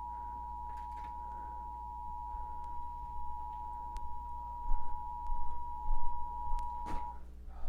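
Emergency Alert System two-tone attention signal: a steady dual tone held for several seconds, cutting off about a second before the end, heralding an AMBER Alert. A low steady hum runs underneath, with a few faint clicks and bumps near the end.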